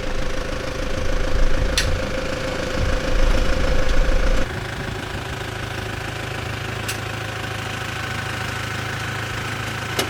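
Toyota Prado 150's diesel engine running, louder and rougher for the first few seconds, then dropping suddenly to a steadier, quieter run about four and a half seconds in. A few sharp clicks sound over it.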